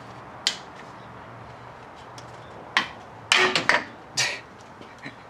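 Hand tools knocking and clanking sharply while working a stuck, rusted-on coolant hose off the thermostat housing: a single knock about half a second in, then a quick cluster of several louder knocks.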